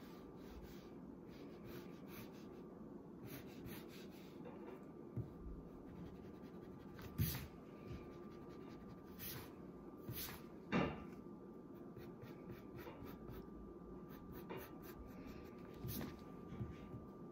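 Wooden pencil sketching lightly on paper: faint scratching strokes, with a few louder soft knocks about seven and eleven seconds in, over a faint steady hum.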